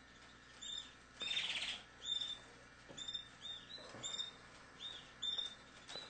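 Canaries chirping: short, high, arched peeps repeated roughly twice a second, with a louder, harsher rasping burst about a second in.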